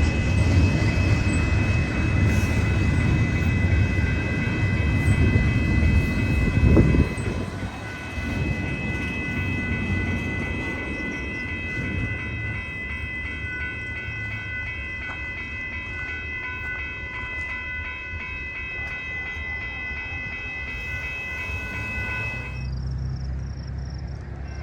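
Freight train rolling past: the rumble of railcar wheels on the rails, loudest for the first seven seconds and then quieter, with a steady high whine over it that cuts off suddenly near the end.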